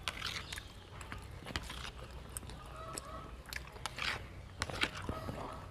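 Close-up eating sounds: a person chewing meatballs, with a metal spoon and fork clicking against a plastic plate now and then.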